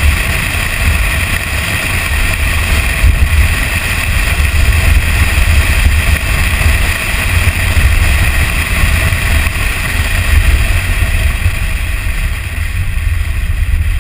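Toyota Tacoma pickup driving fast along a dirt trail: heavy wind buffeting on the outside-mounted microphone over steady road and engine noise.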